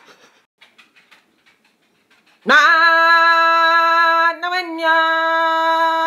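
A woman singing one loud, long held note. It starts abruptly about two and a half seconds in, wavers briefly in the middle and then holds steady again until near the end. Before it there are only a few faint clicks.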